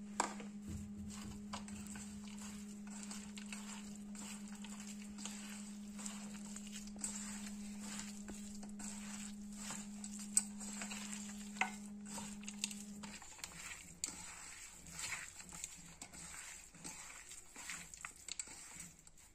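A hand mixing dried meat with chopped onion, green chillies, tomato and spices in a steel bowl: wet squelching and crackling with occasional knocks against the bowl. A steady low hum runs beneath and stops about two-thirds of the way through.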